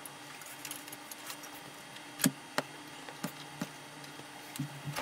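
Scattered small clicks and knocks of power plugs and a socket being handled and swapped on a hi-fi system's power connection, over a faint steady low hum.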